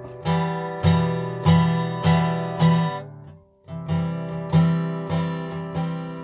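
Acoustic guitar strummed in a steady rhythm, an instrumental break between sung lines of a song. The strumming stops for a moment about halfway through, then picks up again.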